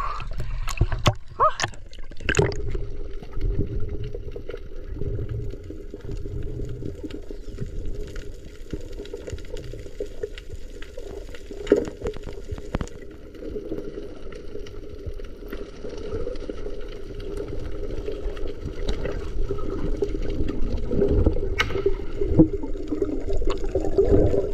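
Muffled underwater water noise heard through a submerged action camera, gurgling and steady, with splashing in the first couple of seconds as the camera goes below the surface. A single sharp click stands out about halfway through.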